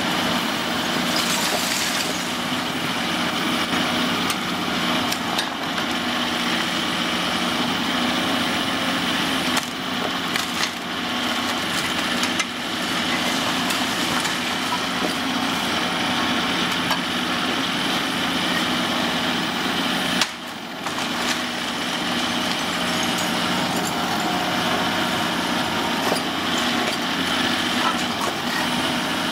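Caterpillar 349E hydraulic excavator's diesel engine running steadily under load while its demolition attachment crushes and pulls down concrete and brickwork, with debris cracking and falling.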